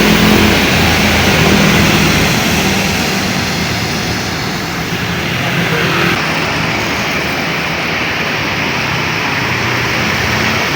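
Steady hiss of heavy rain over a bus's engine running, whose low hum is strongest in the first couple of seconds and then fades under the rain.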